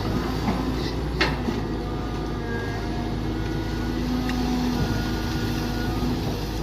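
Mini excavator's engine running steadily under digging work, with a sharp knock about a second in and a couple of lighter clicks.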